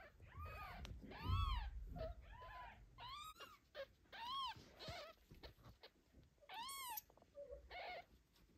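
Newborn kitten mewing repeatedly, short high cries that rise and fall in pitch about once a second, with a brief pause in the middle: the distress calls of a kitten left apart from its mother.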